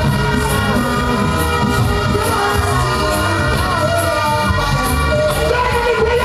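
A record with a sung vocal playing loud over a sound-clash sound system, with a heavy bass line and a steady beat.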